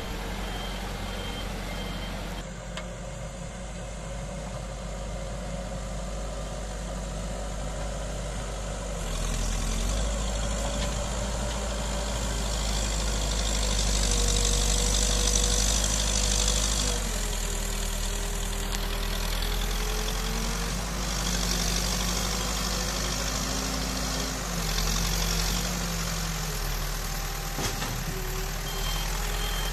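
Case 770 backhoe loader's diesel engine working as the front bucket pushes earth, revving up under load for several seconds from about a third of the way in, then dropping back and changing speed again. A reversing alarm beeps steadily near the end.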